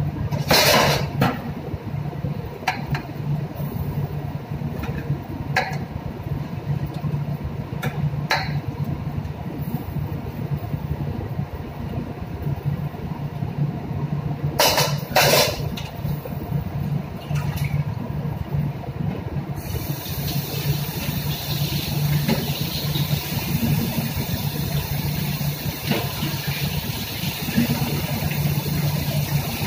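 Steady low hum of a ship's machinery, with a few short knocks and clatters of kitchen utensils. A hiss joins about two-thirds of the way through.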